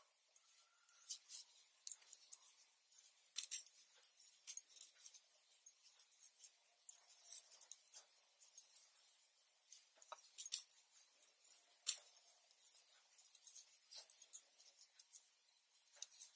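Faint, irregular clicks and clinks of hand-knitting: metal knitting needles tapping together as stitches are worked, with bangles on the knitting wrist clinking along, several light ticks a second.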